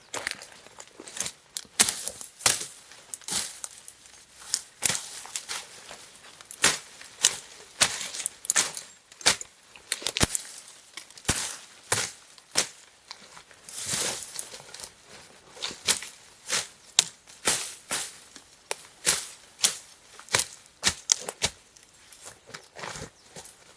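Repeated sharp chopping or knocking strikes at an irregular pace, roughly one or two a second.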